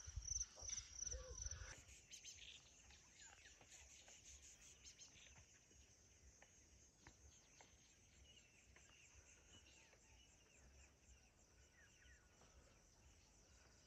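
Near silence: faint open-air bush ambience. In the first two seconds there is a low rumble and a fast pulsing insect chirr, then only faint, scattered short bird chirps.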